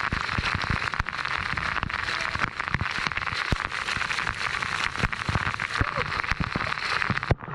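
Waterfall pouring down in a steady rush, with many sharp ticks of water drops striking close to the microphone. The rush cuts off abruptly near the end.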